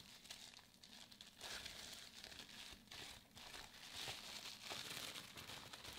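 Faint crinkling and rustling of a plastic bubble-wrap pouch being handled and unwrapped, with scattered small crackles.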